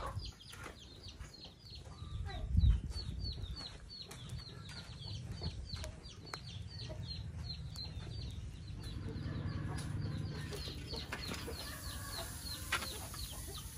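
Chickens clucking and cheeping, with a long run of short, high, falling peeps repeating several times a second. A single low thump about three seconds in is the loudest sound.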